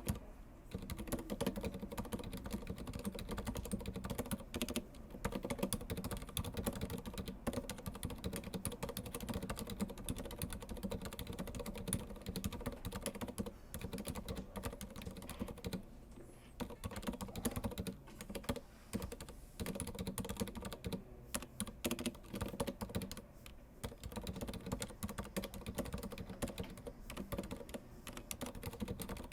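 Typing on an Archiss Maestro 2S mechanical keyboard with Cherry MX Silent Red switches: a fast, continuous run of muted keystrokes with a few brief pauses.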